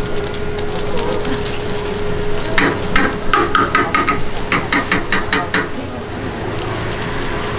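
A quick series of about a dozen sharp metallic clinks and taps, like metal utensils knocking together, starting about two and a half seconds in and lasting about three seconds. Under them are a steady hum and busy street-food-stall background noise.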